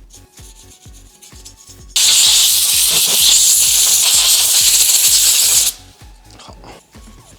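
A jet of compressed air hissing loudly for about four seconds, starting about two seconds in and cutting off suddenly: air blown to clean dust off the graphics card's parts. Background music with a steady beat runs underneath.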